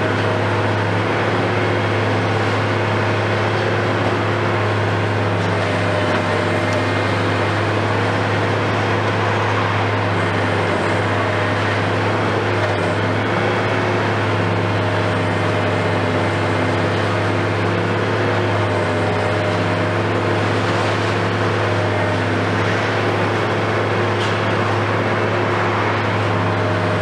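Diesel engine of a KMC 520 BTV high-reach demolition excavator running steadily, a loud low drone whose pitch does not change.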